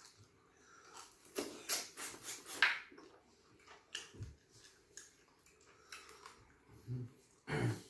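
Close-miked eating noises from a person eating a soup meal: a quick run of short mouth sounds about a second and a half in, a few softer ones after, and a low thump near the end.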